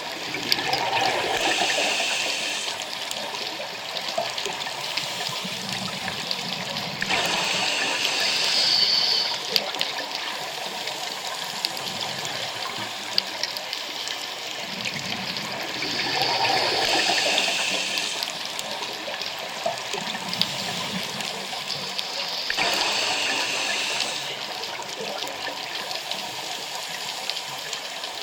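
Scuba diver breathing through a regulator underwater: four bubbling, hissing breaths, each lasting a couple of seconds and coming several seconds apart, over a steady underwater hiss.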